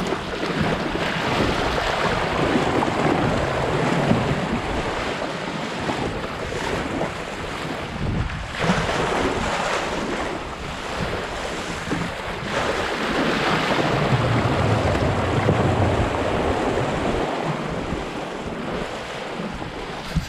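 Water rushing and splashing along the hull of a Sunfish sailboat as it sails fast through choppy waves, with wind buffeting the microphone. The noise swells and eases with the waves, dipping briefly about midway and running loudest a little past the middle.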